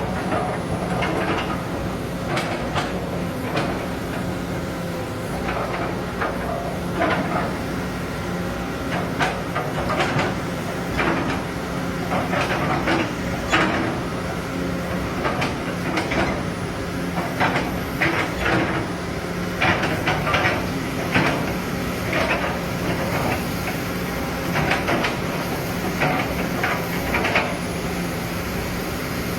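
A brand-new engine on a test run, running steadily with an even hum, and irregular metallic clicks and clanks over it.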